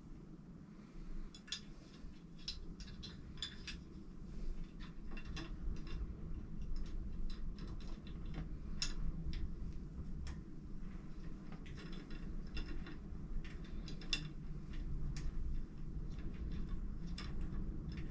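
Irregular light metallic clicks and clinks of tools and bolts being handled on a bicycle stem and handlebar clamp, getting busier a few seconds in, over a low steady hum.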